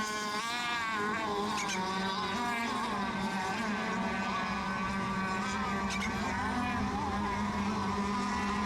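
Several radio-controlled racing boats running around the course together, their motors buzzing at a high pitch that wavers and bends as they throttle through the laps.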